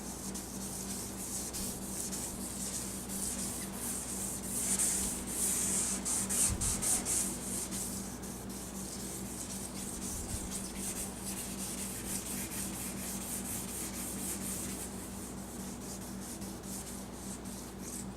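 Hand-sanding a yellowed plastic headlight lens with the fourth abrasive of a Turtle Wax headlight restoration kit: quick back-and-forth rubbing strokes, cross-hatched at 90 degrees to the previous grit. The strokes are strongest for a few seconds near the middle, then lighter.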